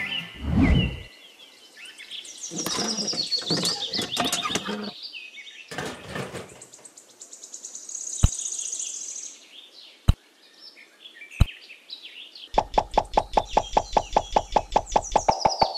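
Small stones being set down around a miniature pump base. After a dull thump and some rustling, single sharp clicks come three times, then a quick run of clicks, about nine a second, near the end. Birds chirp faintly behind.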